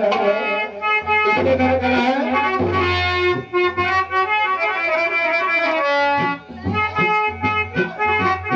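Live Indian folk instrumental: a reedy melody of held notes played over low drum beats.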